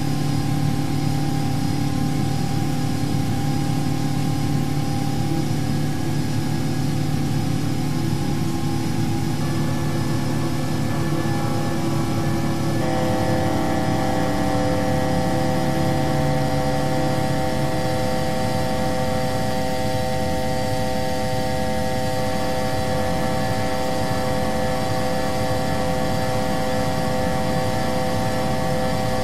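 Steady rumble of Airbus A350 cockpit noise during a go-around climb. About 13 seconds in, the C-chord altitude alert starts: a continuous chord of several steady tones, held to the end, warning that the aircraft is overshooting its selected 2,000 ft go-around altitude.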